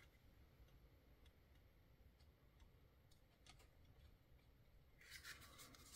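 Near silence: room tone with a few faint, scattered clicks.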